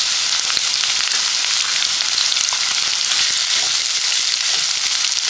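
Chopped onion frying in hot oil with green chilli and curry leaves in a nonstick kadai: a steady sizzle. A wooden spatula stirs the onion through the pan in the later part.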